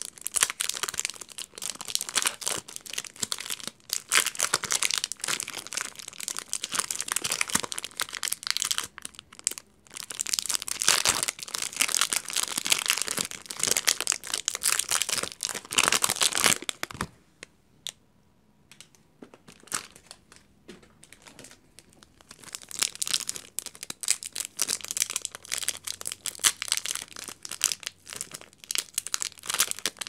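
Soap wrappers crinkling and tearing as bars of soap are unwrapped by hand: a paper-and-film wrapper ripped open, then clear plastic film rustling around a bar. The crinkling runs in long stretches, with a quiet lull of a few seconds past the middle.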